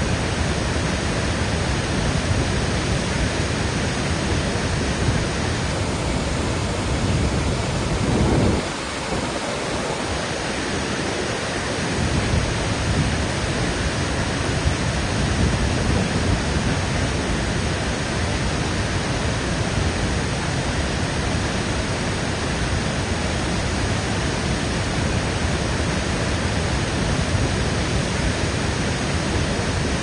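Waterfall: white water pouring down tiered cascades in a steady, dense rush. The deep rumble thins out briefly about nine seconds in, then comes back.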